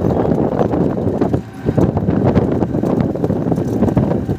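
Wind rumbling on the microphone over the noise of a moving vehicle.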